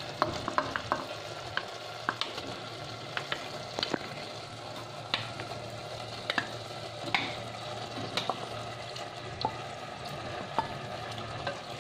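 Vegetable gravy sizzling steadily in a clay pot, with scattered sharp clicks and taps of a spoon against a steel bowl as boiled penne pasta is scraped into the pot.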